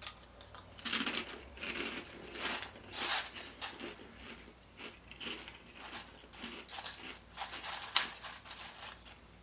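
Crunching and chewing of puffed microwave pork rinds: a run of irregular crisp crunches, the sharpest one a little before the end.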